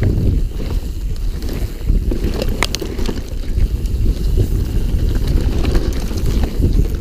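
Wind buffeting a camera microphone over the rumble of a mountain bike's tyres on a rough dirt trail. A few sharp clicks come about two and a half seconds in.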